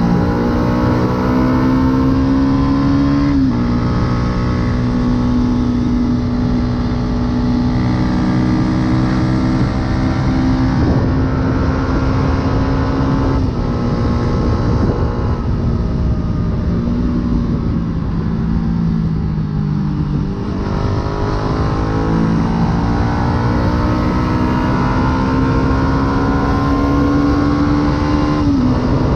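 Yamaha YZF-R125's 125 cc single-cylinder four-stroke engine, breathing through an aftermarket full exhaust, heard on board while riding. The engine note climbs and then drops sharply on upshifts about three seconds in and again near the end, and it falls away gradually as the bike slows in the middle.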